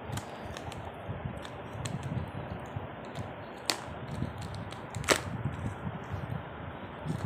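Small cardboard retail box and its plastic insert being handled and pried open: scattered light clicks and rustles, with two sharper snaps, about a second and a half apart, near the middle.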